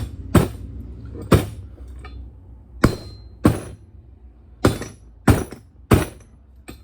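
Hammer blows on metal, about nine sharp strikes at uneven spacing, some with a short metallic ring, as a bushing is hammered out.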